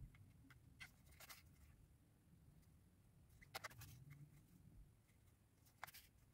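Near silence broken by a few faint rustles and ticks of a needle and yarn being worked through crocheted fabric. The clearest comes a little past halfway.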